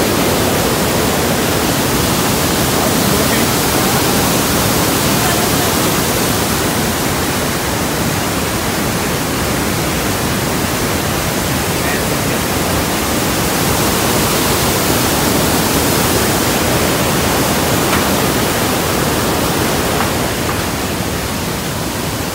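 Loud, steady rush of a large waterfall at close range, Iguazu Falls water pouring down in an even, unbroken roar.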